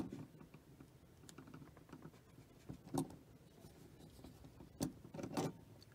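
Faint clicks and light scraping of small metal parts as a steel E-clip held in locking pliers is slid onto the coupler post of an O gauge Lionel 628 power truck. A few sharper ticks come about three seconds in and near the end.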